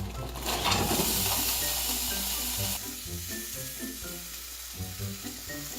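Food sizzling in a hot pot, loud from about half a second in and dropping off sharply near three seconds, then sizzling more softly.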